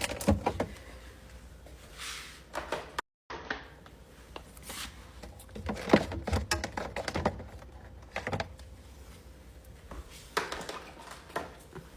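Food packages and plastic containers being handled and set down in a refrigerator: scattered knocks, clicks and rustling. The sound drops out briefly about three seconds in.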